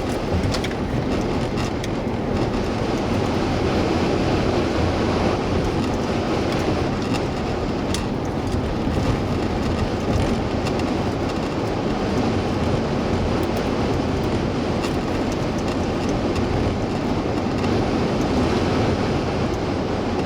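Steady road and tyre noise of a car driving at speed, heard from inside the cabin, with a few faint clicks.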